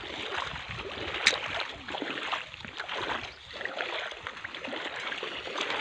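Steady rush of running stream water.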